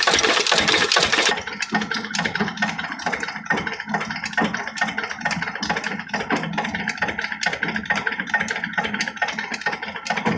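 Lathe running. A loud high hiss over the machine noise stops about a second in, leaving a steady hum with a regular rattling clatter.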